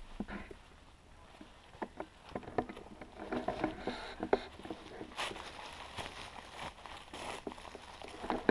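Dry leaves and twigs rustling and crunching, with scattered sharp snaps, as someone moves through a leaf-covered debris shelter. The rustling is heaviest a few seconds in and again past the middle.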